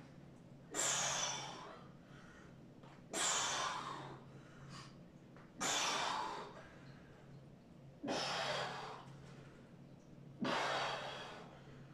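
A man breathing hard through the mouth while doing diamond push-ups, about one breath every two and a half seconds, five in all. Each breath starts sharply and trails off.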